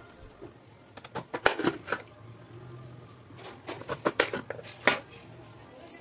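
Knife cutting raw bottle gourd (lauki) over a plate: sharp clicks and taps come in two bunches, about a second in and again from about three and a half to five seconds in.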